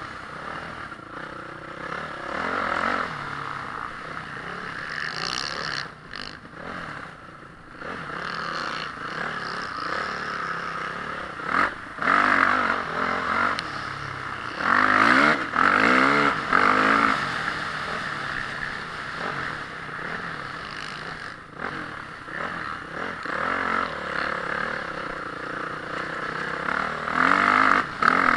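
Honda CRF450R motocross bike's single-cylinder four-stroke engine revving up and down hard as it is ridden around the track, its pitch climbing and falling with the throttle. The throttle drops off briefly about a quarter of the way in, and the loudest full-throttle bursts come a little before halfway, around the middle and near the end.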